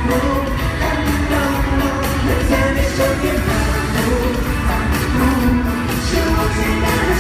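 Live pop music: a band playing with a steady drum beat while a voice sings the melody.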